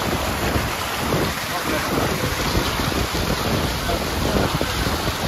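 Snowmelt runoff rushing over flooded grassland: a steady, loud rush of muddy, foaming water.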